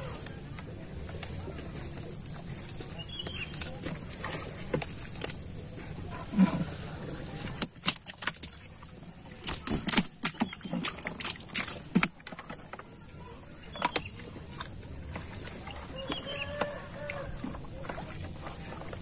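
A cluster of sharp knocks and slaps through the middle: freshly netted tilapia flapping against the bottom of the boat. Around it, a few short, faint animal calls over a steady high whine.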